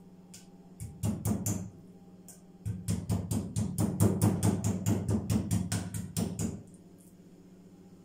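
Meat mallet pounding raw chicken breast slices flat on a wooden cutting board: a few blows about a second in, then a quick even run of about four blows a second for nearly four seconds.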